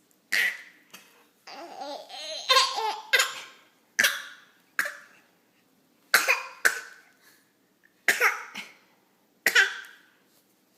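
Eight-month-old baby fake-coughing: short, sharp coughs that come mostly in pairs every couple of seconds. About a second and a half in, there is a stretch of laughing.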